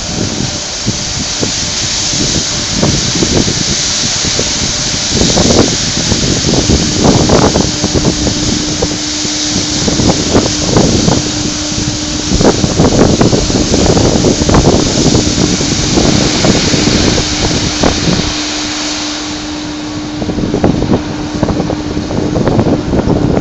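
Woodchips pouring out of the open bottom doors of a crane-hung hopper bucket onto a pile: a loud rushing hiss with irregular thuds, thinning out near the end as the bucket empties. A steady low machine hum joins a few seconds in.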